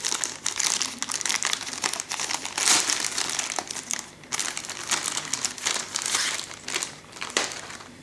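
Plastic bag crinkling and rustling as it is unwrapped from a modem router by hand, continuous crackling with a brief lull about halfway through.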